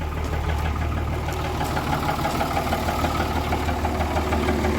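Common-rail Cummins turbo diesel idling steadily with a faint, regular knock from the bottom end: rod knock from a worn-out engine that also has heavy blow-by.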